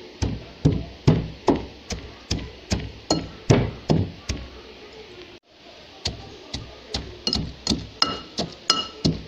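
A pestle pounding dry chilli flakes, onion and Maldive fish chips in a mortar for sambal: steady strikes about two and a half a second, each with a slight ringing clink. The strikes break off briefly about halfway through, then carry on.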